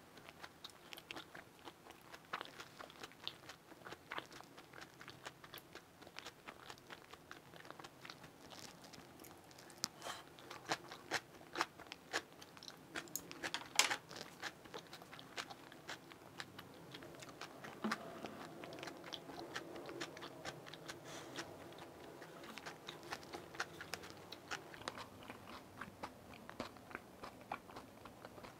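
Close-miked chewing and crunching of a crispy Korean chive pancake (buchujeon), with many short sharp clicks scattered through it, the loudest about fourteen seconds in.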